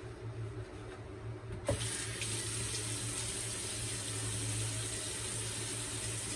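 A water tap is turned on about two seconds in, with a small knock as it opens, and then runs steadily into a sink.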